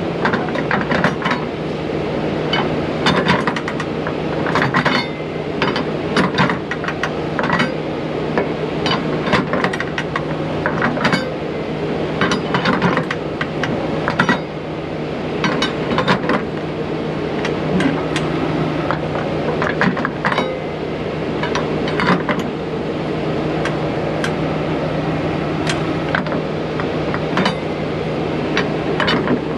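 Irregular metal clinks and knocks, a few a second, from cargo straps and their hardware being handled against a flatbed trailer's rail, over a steady low hum.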